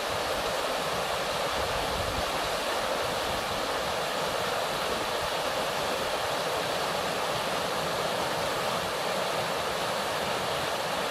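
River running high, a steady rush of flowing water with no change through the clip.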